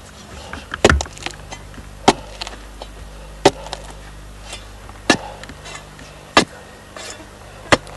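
A long digging bar driven into hard earth, six sharp strikes about one every second and a half, with small crumbling clicks of soil between them.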